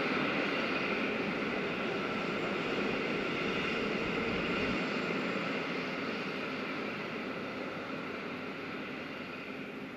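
A metre-gauge freight train's wagons rolling along the track as a steady rumble. It fades slowly as the train moves away.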